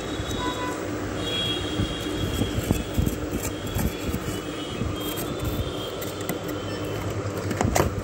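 Metal spoon scraping and gouging a block of ice in repeated rough strokes, over a steady low hum. A sharp knock near the end.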